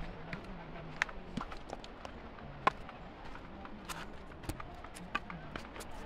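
Footsteps crunching and scuffing down a steep trail of dirt, gravel and loose stones. Irregular sharp clicks and taps come as feet and stones strike the ground.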